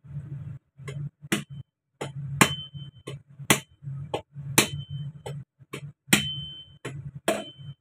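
A cleaver knocking against a whole husked coconut, already drained of its water, to crack it open: about six sharp knocks roughly a second apart with lighter taps between, several followed by a brief ringing note.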